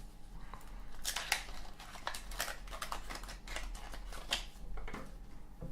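Hands handling a Zippo lighter's box and packaging while peeling off its seal: scattered small clicks, taps and papery rustles.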